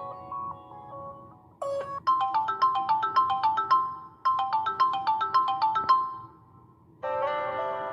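Samsung Galaxy S3 built-in ringtones playing back. A short, bright melodic phrase plays twice and fades out, and a different tone starts about a second later.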